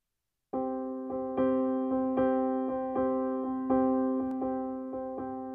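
Background piano music, starting about half a second in: a slow run of keyboard notes and chords, each struck and left to fade before the next.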